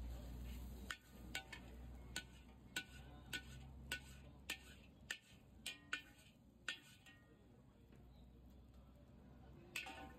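Metal spatula striking and scraping a large wok while frying and dishing up noodles: about a dozen sharp, ringing clanks over the first seven seconds, then one more near the end.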